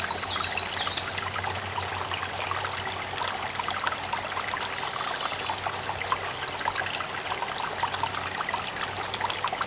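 Small creek trickling and babbling steadily over rocks. A few short, high, falling bird chirps sound near the start and again about halfway through.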